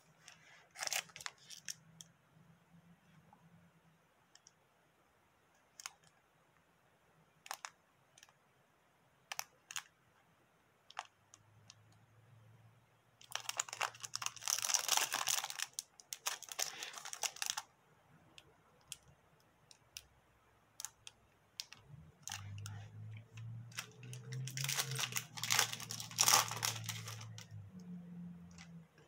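Foil wrapper of a pack being handled, crinkled and torn open by hand, in two long spells of crackling rustle, with scattered light clicks and taps between.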